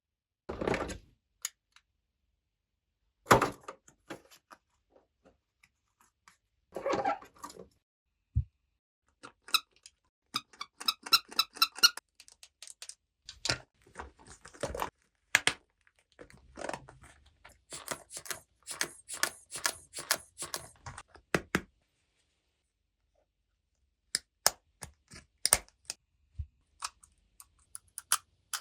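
Plastic toy pieces being handled and set down: scattered knocks and clicks, sparse at first, then a dense run of clicks and short rattles, then a pause, then a few more clicks near the end.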